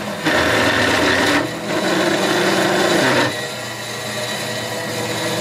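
Old metal-cutting wet saw, a cold saw with a toothed blade and water-and-oil coolant, fed down slowly as its blade cuts through square metal tubing. The loud cutting noise stops about three seconds in, and a quieter steady hum of the running saw follows.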